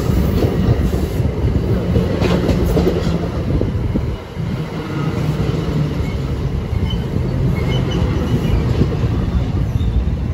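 New Jersey Transit bilevel passenger train passing close by, its steel wheels giving a loud, steady rumble on the rails, with a sharp clack about two seconds in.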